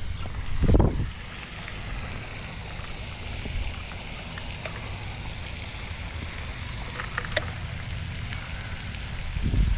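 Steady hiss of rain and a splashing pond fountain, with two low thumps of microphone buffeting, about a second in and near the end, and a few light clicks.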